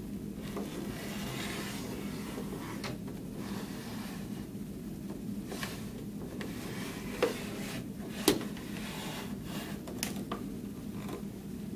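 Star TSP654 thermal receipt printer's plastic paper cover being handled, opened and shut by hand: a series of sharp clicks and knocks, the two loudest about seven and eight seconds in, over a steady low hum.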